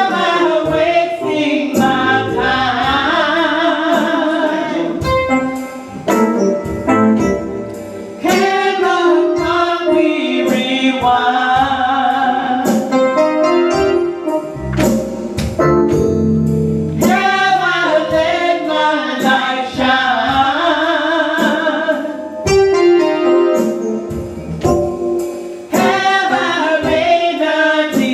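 Gospel singing with instrumental accompaniment and a steady beat.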